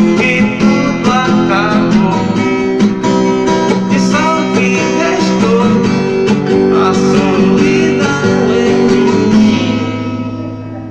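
Music led by acoustic guitar, played on a car sound system; it fades out near the end.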